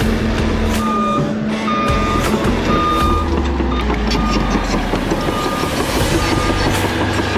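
Reversing alarm on heavy equipment beeping a single high tone about once a second over a diesel engine's low rumble, as the machine backs up.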